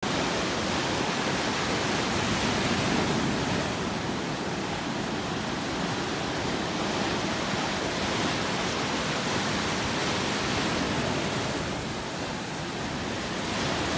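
Ocean surf breaking close by: a steady rush of waves crashing and white water churning, easing slightly near the end.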